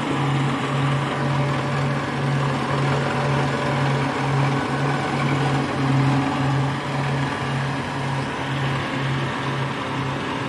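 Rice harvesting machine's engine running steadily under load, with a low hum that pulses about twice a second.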